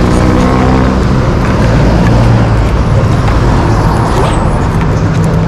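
Road traffic close by: engines of passing vehicles running, with a steady engine drone strongest in the first second and a low engine hum again near the end.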